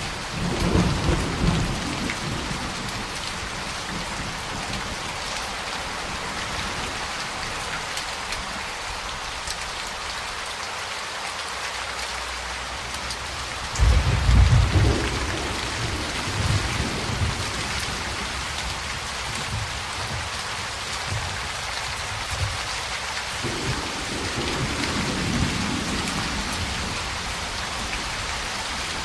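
Steady heavy rain with rolling thunder: rumbles in the first couple of seconds, a sudden loud thunderclap about halfway through that rumbles on for several seconds, and a softer roll of thunder near the end.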